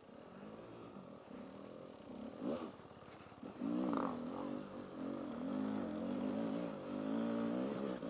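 A vehicle engine running at a wavering idle. It gets louder a few seconds in, with a brief rise and fall in pitch early on.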